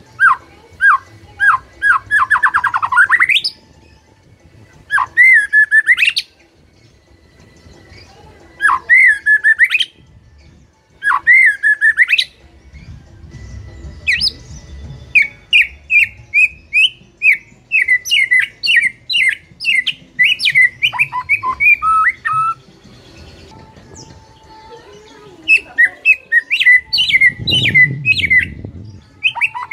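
White-rumped shama (murai batu) singing loud whistled phrases of quick chirps and upward-sweeping notes, with a long rapid run in the middle and another near the end.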